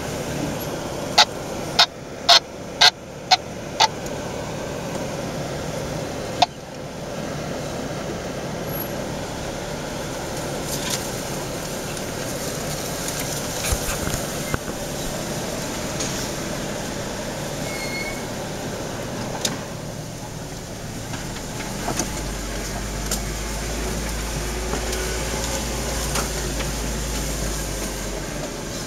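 Off-road 4x4 engine running at low crawling speed over a rocky trail. Six sharp knocks come in quick succession in the first few seconds, with one more a few seconds later, and a deeper low hum joins near the end.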